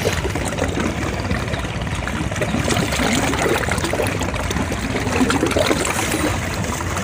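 River waves lapping and sloshing against a concrete-block embankment, with light splashing from people swimming close by. A steady, irregular wash of water.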